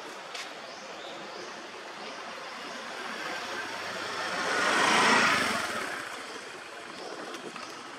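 A motor vehicle passing by off-screen: its engine grows louder to a peak about five seconds in, then fades away.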